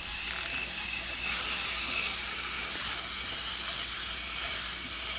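Small clockwork wind-up toys: the winding key clicks through its ratchet, then from about a second in the spring-driven gears whir steadily as the toys walk across the table.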